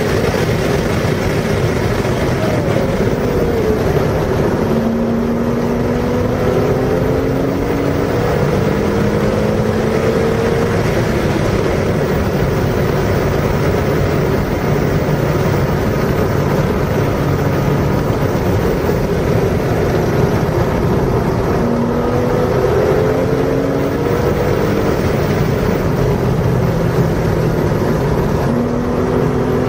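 Car engine pulling hard on a race track, its pitch climbing several times as it accelerates through the gears, over a constant loud rush of wind and road noise.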